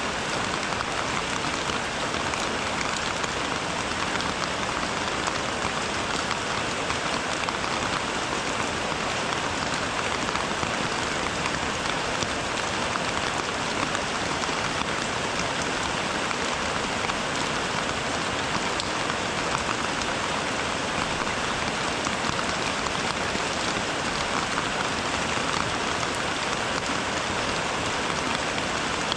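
Steady rain falling, an even dense hiss of drops with faint scattered ticks, unchanging throughout.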